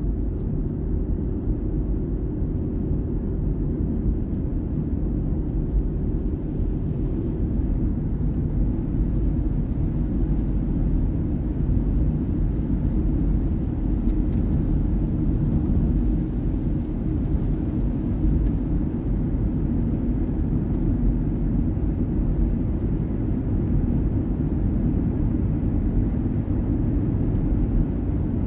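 Steady low rumble of tyre and road noise, heard from inside a car driving at highway speed into and through a long road tunnel.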